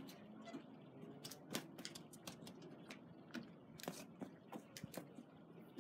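Faint, irregular small clicks and ticks, several a second, with no speech.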